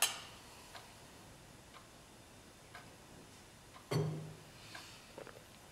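Two drinking glasses clinking together in a toast, then a clock ticking softly about once a second, with a short low thud about four seconds in.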